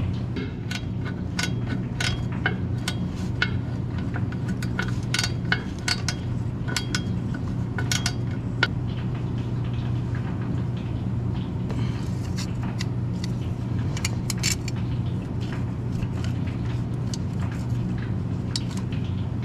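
Metal hand tools clinking and clicking against a steel bolt and bracket while a bolt is worked in by hand, in irregular clusters, over a steady low hum.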